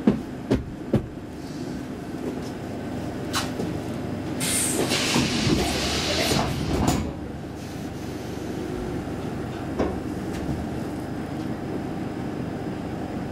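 Inside a Saltsjöbanan C10/C11 electric railcar standing at a station: a steady hum, three sharp clunks in the first second, then a rush of hissing noise lasting about two and a half seconds around the middle, with a fainter knock near ten seconds in.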